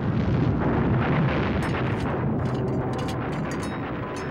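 Earthquake rumble: a continuous low rumbling while plates and mugs on a shelf rattle and clink. The clinks come thick and fast from about a second and a half in.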